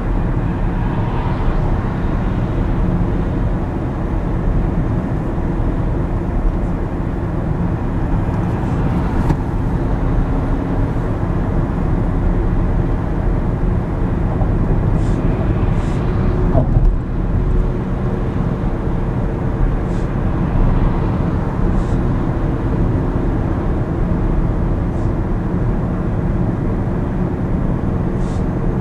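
Steady road noise of a car driving at highway speed, heard from inside the cabin: a dense low rumble of tyres and wind with a faint engine drone. A few faint clicks come through in the middle and near the end.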